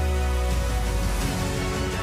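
Outro theme music, with a deep sustained bass note in the first second or so.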